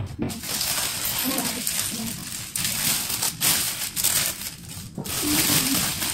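Clear plastic flower wrapping crinkling and rustling as hands sort through cut flower stems lying on it, in several stretches with short pauses between.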